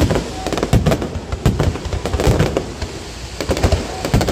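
A fireworks display exploding in quick succession: deep booms every second or so amid dense crackling.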